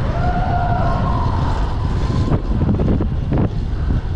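Wind rushing over the microphone of a handlebar-mounted camera on a fast-moving bicycle. Over it comes a long, high, held tone that rises slightly and then falls over about two seconds, and two knocks follow in the second half.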